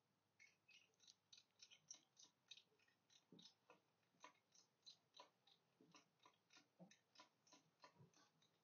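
Faint, quick clicking, about three to four clicks a second, from a hand tool tightening the screw that clamps a roof rack bar to its mount.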